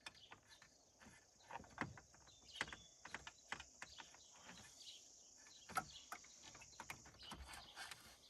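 Faint, scattered clicks and light taps of small gauge parts being handled while the lamp socket is pushed into the back of a mechanical oil pressure gauge, over a steady high hiss that stops near the end.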